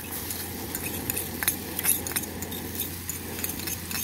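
Metal spoon scraping and clinking against a small mortar as chili paste is scooped out, a scatter of sharp clicks and scrapes at irregular intervals, over the steady hiss of a portable butane gas stove.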